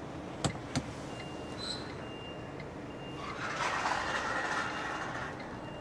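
Reversing alarm beeping about once a second, with a hiss lasting about two seconds in the middle.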